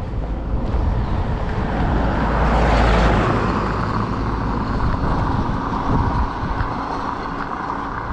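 A motor vehicle driving past on the road, its tyre and engine noise building to its loudest about three seconds in, then fading away.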